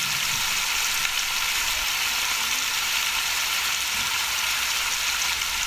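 Short ribs searing in hot oil and caramelized sugar in a large pot, a steady sizzle. This is the browning stage, with the meat freshly added to the caramel.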